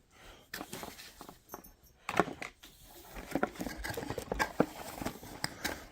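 Handling noise: a run of light clicks, taps and knocks as small hard objects are picked up and moved, with a louder knock about two seconds in.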